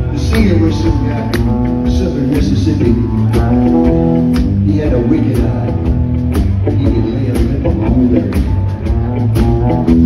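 Live rock band playing a blues-rock boogie: electric guitar, bass guitar and drum kit, with a steady driving beat.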